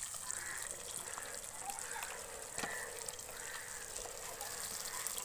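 Battered fish bajji deep-frying in hot oil in an iron kadai, a steady sizzle, with a single light knock about two and a half seconds in.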